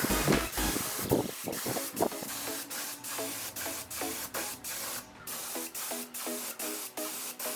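Steady hiss of a compressed-air spray, breaking off briefly about five seconds in, under electronic background music with a steady beat.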